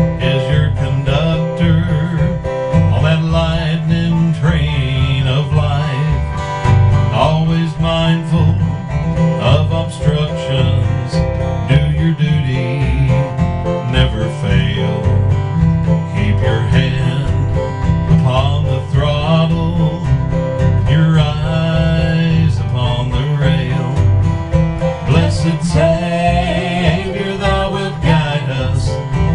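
Acoustic guitar strummed in a steady rhythm together with a Korg PS60 keyboard, with a man and a woman singing a gospel hymn in a country style.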